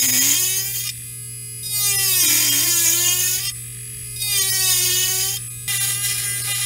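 Micromotor rotary tool running with a steady whine while its bit grinds a lip slot into a carved lure body, in four short cutting passes; the pitch dips slightly as the bit bites.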